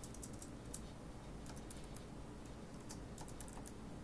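Typing on a computer keyboard: light keystroke clicks at an uneven pace, a few near the start and a quicker cluster in the second half.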